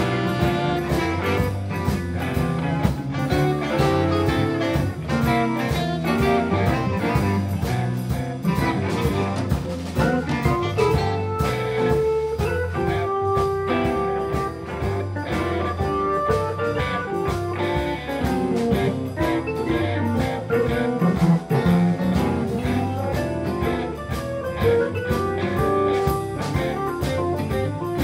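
Live blues band playing: electric guitars, bass guitar, drum kit and keyboard together, with some long held notes about halfway through.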